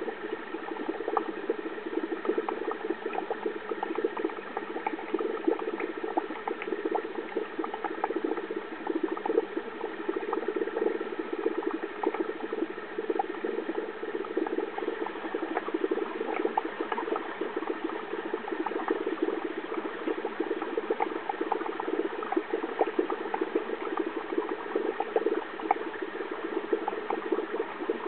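Aquarium water bubbling steadily, with a dense crackle of tiny pops.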